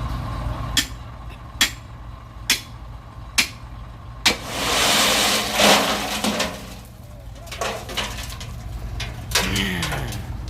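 Hydraulic excavator's diesel engine running steadily, with four evenly spaced sharp knocks in the first few seconds, then a loud rushing noise for about two seconds, and a few more knocks near the end.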